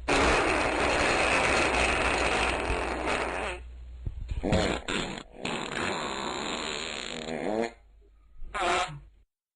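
A person burping loudly several times: a long rough burp, a few short ones, another long burp that wavers in pitch, and a last short burp near the end.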